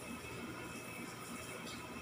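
Faint background music or TV sound, with a soft brushing scrape near the end as a dog rubs its head and fur against a wooden parquet floor.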